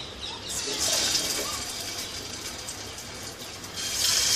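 Potato patties sizzling in hot oil in a frying pan as they are laid in to shallow fry. The hiss swells about a second in and again near the end, as patties go into the oil.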